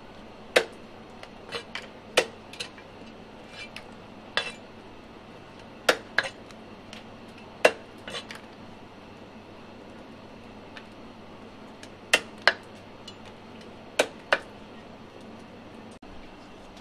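Sharp irregular clicks and knocks of a knife working pieces of giant river prawn on a round wooden chopping block, about a dozen in all, several coming in quick pairs.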